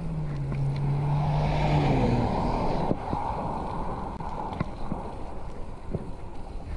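Fixed-gear bike riding on a paved street: wind on the microphone and road rumble, with small knocks and rattles. A motor vehicle's engine hum and tyre noise swell to a peak about two seconds in and then fade.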